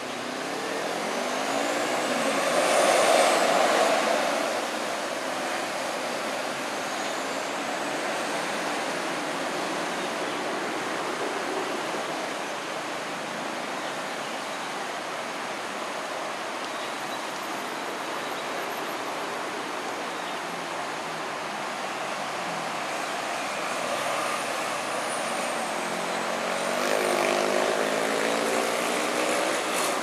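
Steady background rush of outdoor traffic and flowing water, with a vehicle passing about three seconds in and another near the end, its engine pitch rising.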